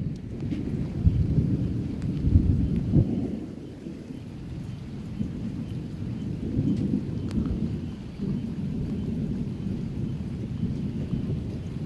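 Thunder rumbling in a lightning storm, louder for the first few seconds, then settling into a steadier low rumble.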